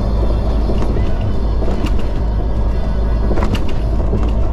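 Vehicle driving on a highway: steady low road and engine rumble, with a few faint clicks about two and three and a half seconds in.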